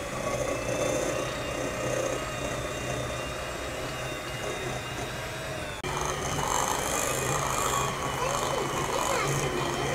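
Electric hand mixer running steadily, its beaters whisking batter in a glass bowl. The sound drops out suddenly for an instant about six seconds in, then carries on.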